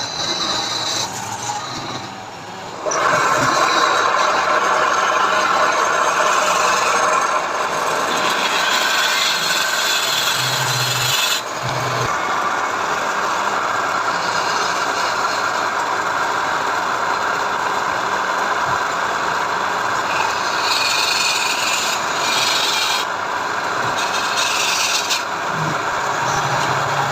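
Wood being worked with an abrasive tool: a steady rubbing and rasping that starts abruptly about three seconds in and keeps going without a break.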